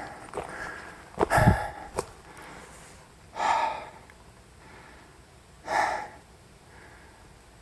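A person breathing hard from the exertion of a steep uphill hike: three loud, heavy breaths about two seconds apart.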